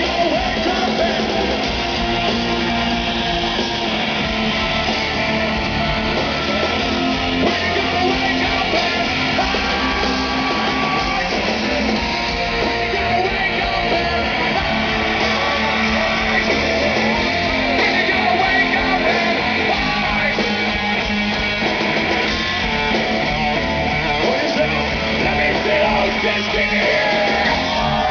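Hard rock music with electric guitars, steady and loud throughout.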